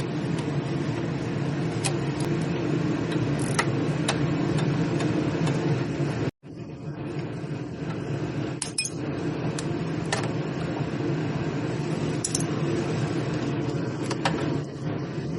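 Troy-Bilt snowblower's small engine running steadily, with scattered sharp metallic clinks and clicks over it and a brief break about six seconds in.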